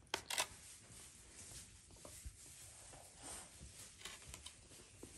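Quiet room with two light clicks about a quarter to half a second in, then a few faint ticks. These are the small sounds of eating spaghetti with a plastic fork from a paper plate.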